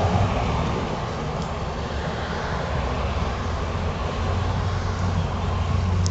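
Steady rumbling background noise, heaviest in the low end, swelling slightly near the end, with no distinct clicks or knocks.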